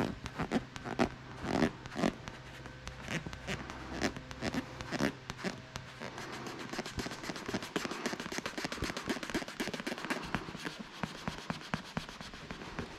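A wooden stick scraping and rubbing over a freshly laid patch on a rubber fat-bike inner tube, pressing the patch down so it bonds. The strokes are louder and more spaced at first, then quicker and more even from about six seconds in.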